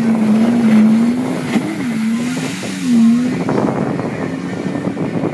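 Yamaha WaveRunner personal watercraft engine running hard, its pitch dipping and swinging back up as the rider turns, over a steady rush of water spray and wind.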